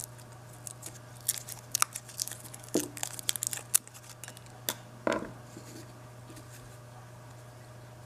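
Hands handling and cutting old taped-up motor wire leads with pliers: scattered clicks, rustles and snips over the first five seconds or so, then only a steady low hum in the background.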